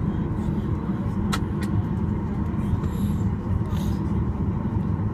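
Steady low rumble of a Boeing 737's engines at low power, heard inside the cabin while the airliner taxis. Two short sharp clicks come a little over a second in.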